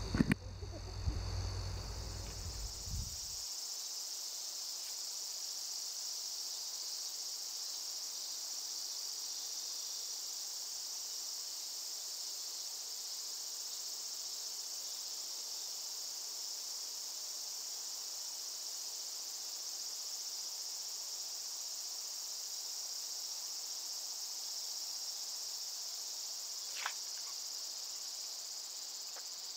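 Steady, high-pitched chorus of summer insects. A few knocks and a low rumble in the first few seconds, and a single short click near the end.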